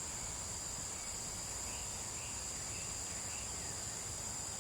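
Outdoor insect chorus, a steady high-pitched shrill hum, with a few faint short chirps about halfway through.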